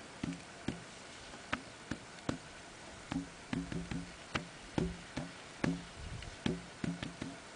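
Hand tapping out an uneven rhythm on the top of a hollow metal post, about twenty sharp knocks, some in quick runs. Each knock rings briefly with a low pitched tone.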